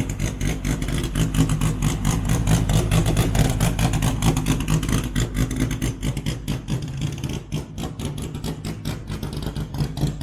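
Race car engine running close by, a loud, lumpy, pulsing exhaust rumble that stays steady throughout, easing off slightly near the end.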